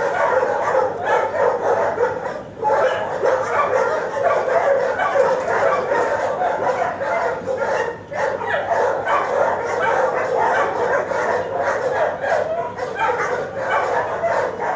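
Many dogs barking and yipping at once in a shelter kennel block: a continuous, overlapping din with no pauses.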